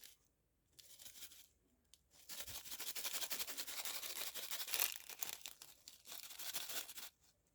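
Plastic packaging crinkling and tearing: a short crackle about a second in, then a long, dense stretch of crackling from about two seconds in until shortly before the end.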